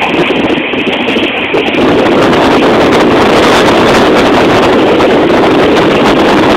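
Steady, loud running noise of a train moving at speed, with wind buffeting the microphone; it grows a little louder about two seconds in.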